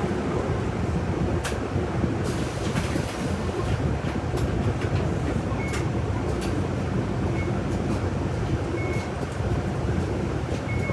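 City bus heard from inside the cabin while under way: a steady low engine and road rumble with scattered rattles and clicks. Four short high beeps come in the second half, about a second and a half apart.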